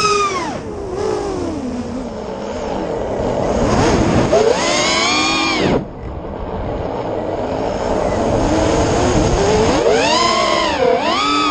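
FPV racing/freestyle quadcopter's brushless motors and propellers whining, the pitch swooping up and down with the throttle. It falls away about half a second in and climbs again around four to five seconds. It cuts off sharply at a throttle chop near six seconds, then rises and dips twice near the end.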